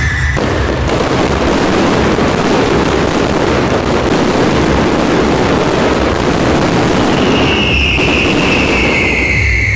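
Dense, continuous crackling of a firecracker and fireworks barrage, starting abruptly just after the start. It thins near the end, where a high, slowly falling tone comes in.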